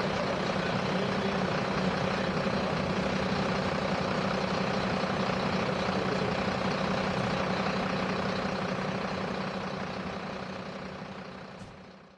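Engine idling steadily with a constant low hum. It fades out near the end.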